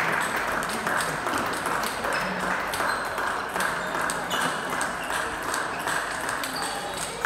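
Table tennis rally: the celluloid-type plastic ball clicks sharply against the bats and the table many times, over a loud steady hiss that cuts in and stops abruptly.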